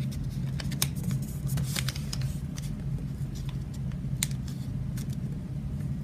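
Origami paper rustling and crackling as it is folded by hand and pressed into sharp creases, with scattered crisp little clicks over a steady low hum.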